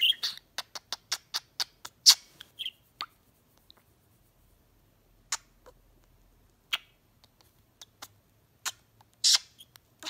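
Budgerigar clicking and chattering: a quick run of sharp clicks, about four a second, over the first three seconds, then scattered single clicks and a short chirpy burst near the end.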